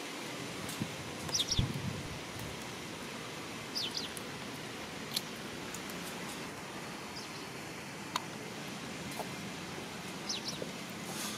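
Steady outdoor background hiss with a bird's short, high double chirp heard three times, several seconds apart, and a dull low thump about one and a half seconds in.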